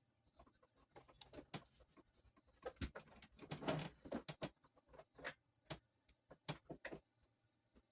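Small screwdriver and bits being handled and fitted into a screw: scattered light clicks and taps, with a longer stretch of rattling and scraping about three to four and a half seconds in.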